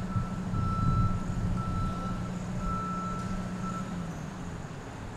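Mobile crane's diesel engine running, with its warning alarm sounding a string of beeps, each about half a second long and roughly one a second. The beeping stops about four seconds in, and the engine's note drops at the same time.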